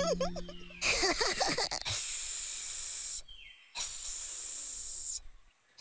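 A snake-like hiss, done twice: a long, steady hiss of about two seconds, a short break, then a second hiss of about a second and a half, in imitation of a snake.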